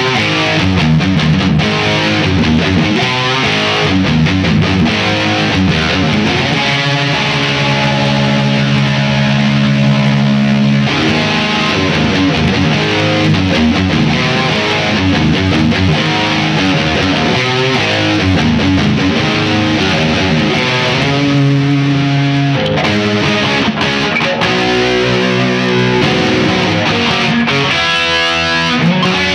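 Electric guitar, a Les Paul copy on its stock pickups, played through a Line 6 POD GX modeller with distortion: continuous riffs and lead lines, with chords held for a few seconds about a third of the way in.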